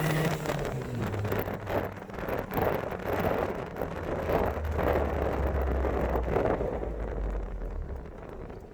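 Turbocharged Toyota Tacoma pickup under way, its engine note dropping in pitch over the first second as the revs fall, then settling into a low steady drone under a rush of wind and road noise.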